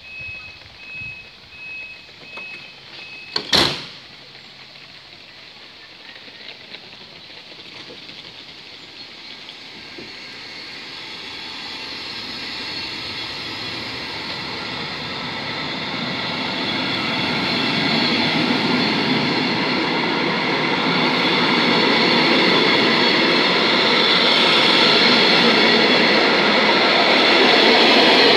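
Door-closing warning on a MÁV passenger coach: about five short high beeps, then a loud bang about three and a half seconds in as a door shuts. The train then pulls away, its rolling noise rising steadily louder as the coaches pass.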